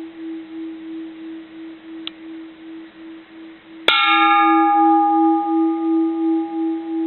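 Bronze Japanese Buddhist temple bell ringing with a long, pulsing hum, struck again just under four seconds in: a sharp clang with bright overtones that fades back into the wavering hum.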